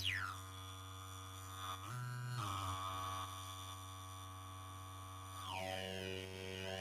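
Homemade MFOS Weird Sound Generator synth on a breadboard, droning electronically: a steady low buzz with a sweeping tone that falls away at the start, a brief jump in pitch about two seconds in, and a tone gliding downward near the end.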